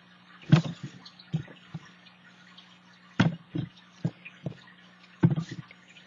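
Paper being handled and pressed down by hand on a cutting mat: a few irregular short taps and rustles, over a steady low hum.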